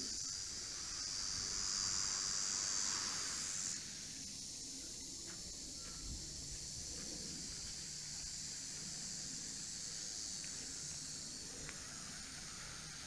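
Insect chorus: a steady high-pitched buzz, loudest over the first few seconds, dropping off sharply about four seconds in and then going on more quietly.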